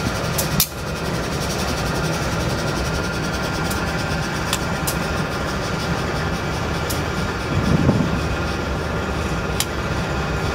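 Canadian Pacific freight train's diesel locomotives approaching with a steady engine rumble, over wind noise on the microphone.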